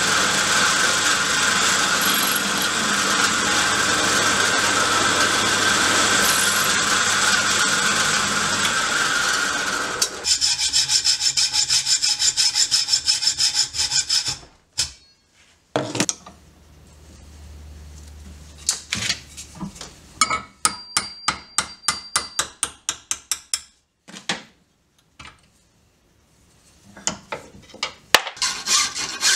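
Drill press running with its bit cutting into scrap steel held in a machine vise. About ten seconds in it gives way to a hacksaw cutting steel clamped in a bench vise with rapid, even strokes, followed by scattered hand-tool strokes on the steel with short pauses.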